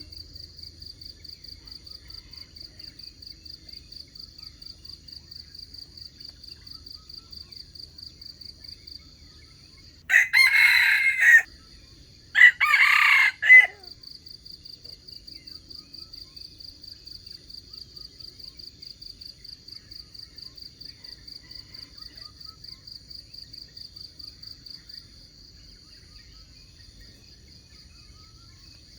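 A rooster crows twice in quick succession, each crow lasting a little over a second. Behind it runs a steady, high-pitched, rapidly pulsing trill that stops a few seconds before the end.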